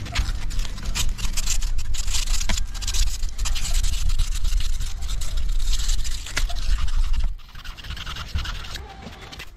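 Sandpaper rubbed hard back and forth on the metal of a Tecumseh engine to clean it, a dense scratching that stops abruptly about seven seconds in.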